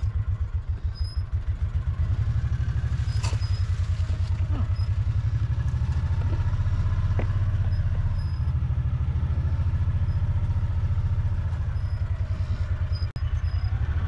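A vehicle's engine running steadily with a fast low pulsing as it drives along.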